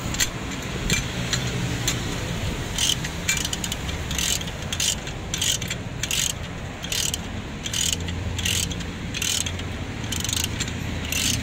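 Socket ratchet wrench on an extension tightening a bracket bolt: short bursts of ratchet clicks as the handle is swung back, repeating about every half-second to a second.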